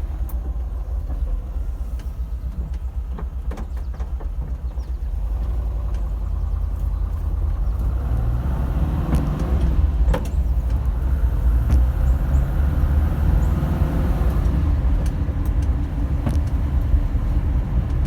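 VW bus engine running with the knock the owner takes for piston slap. It grows louder about halfway through and stays up.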